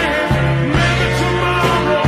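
Background rock music with a steady bass line.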